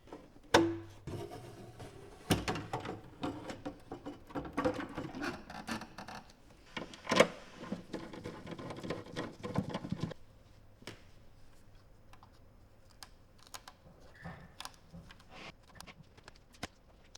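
Handling noise: clattering, rubbing and knocking of hard plastic parts being worked by hand. There is a sharp knock about half a second in and a busy stretch of clatter until about ten seconds in, then only scattered light clicks.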